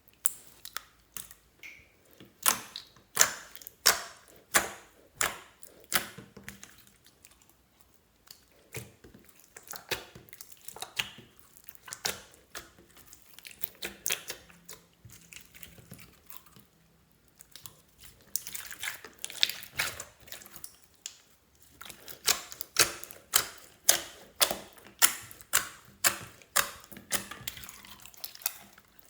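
Slime being squished and folded by hand, giving crisp clicking and popping from trapped air, several pops a second in irregular runs with short pauses.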